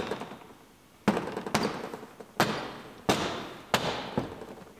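Plastic liftgate trim panel on a 2019 Ford Explorer being pressed up by hand, its retaining clips snapping into the liftgate. About six sharp thumps, spaced half a second to a second apart.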